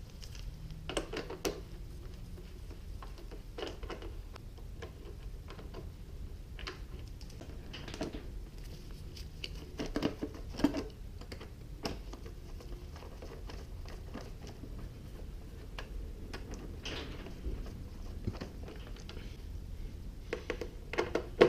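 Irregular small clicks and scrapes of a screwdriver working screws out of a motorcycle's side fairing, over a steady low hum.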